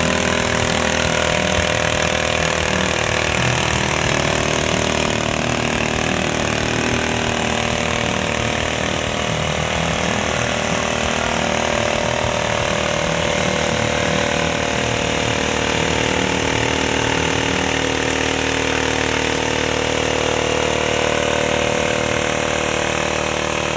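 Engine of a custom-built burnout machine running continuously at an even, unchanging pitch during a burnout, with thick tire smoke.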